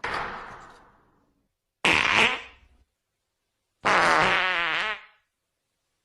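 Three fart sound effects, one after another, each about a second long with short silences between them.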